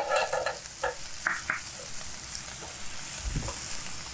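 Chicken and garlic sizzling in two frying pans while spatulas stir them, with a few short scrapes of a spatula against a pan about a second in.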